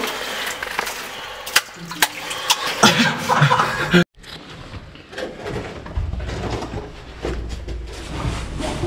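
Scraping, shuffling and knocking as a caver in an oversuit squeezes through a tight rock crawl, with close camera handling noise. The sound breaks off for an instant about four seconds in, then carries on with a low rumble under the scraping.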